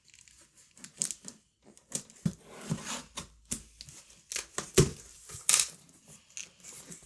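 A knife slitting the packing tape on a cardboard box, then the box's cardboard flaps being handled and pulled open: an irregular string of scrapes, rips and clicks, with a sharp knock a little before five seconds in.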